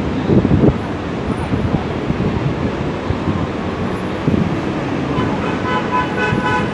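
Street traffic noise with wind rumbling on the microphone. Near the end, a pitched tone with several overtones sounds for about a second and a half.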